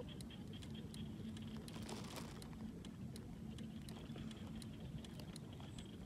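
Faint outdoor ambience: low steady noise with a faint continuous hum and scattered light clicks.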